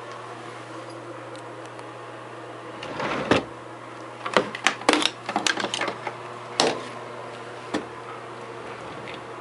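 Hair dryer running steadily with a low hum and hiss. From about three seconds in there is a flurry of sharp clicks and knocks, with one more near the end.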